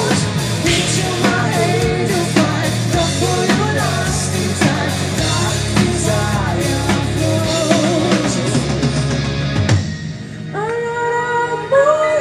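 Heavy metal band playing live: drums, electric guitars and bass under sung vocals. About ten seconds in, the drums and low end drop out, leaving a quieter passage of held notes.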